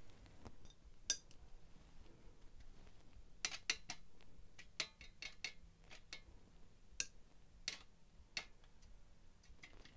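Scattered light clicks and clinks of a watercolour brush tapping against hard painting gear as colours are picked up and swatched, with a quick bunch of clicks a few seconds in.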